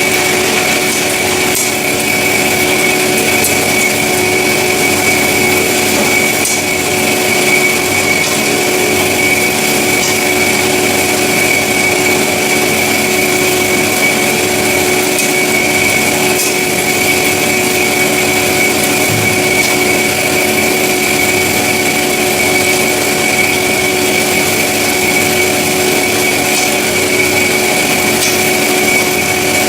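Semi-automatic metal-cutting band saw running steadily, a constant whine over an even hiss.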